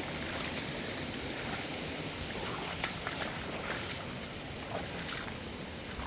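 Steady rush of a flowing mountain creek, with a few faint clicks over it.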